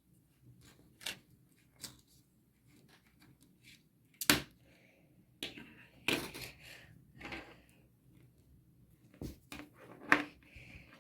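Scattered sharp clicks and taps of a smartphone's small plastic and metal parts being handled and unclipped during disassembly, the loudest about four seconds in, with brief soft rustles between.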